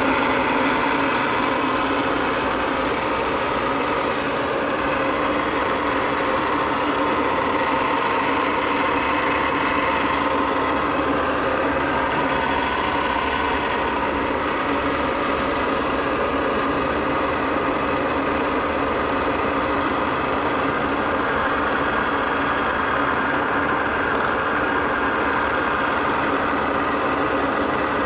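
Millport Model 2S knee milling machine running, its 2 HP three-phase spindle motor giving a steady mechanical hum with a whine.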